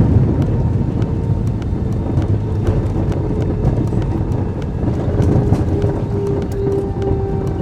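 Airbus A320 cabin noise on the landing rollout: a heavy rumble of wheels and engines that slowly fades as the aircraft decelerates, with a steady engine whine that comes through more clearly near the end and many small clicks and rattles.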